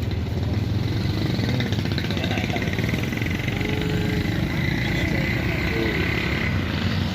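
Street traffic with motorcycle engines running close by, a steady low rumble, with faint voices underneath.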